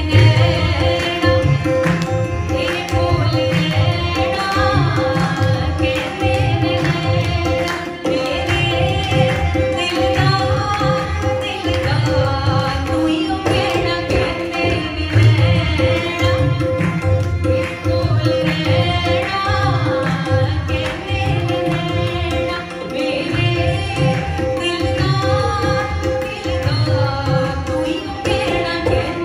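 Live Indian classical-style music: a woman singing a melody with sliding ornaments, over tabla strokes and a steady held drone, with harmonium and violin accompaniment.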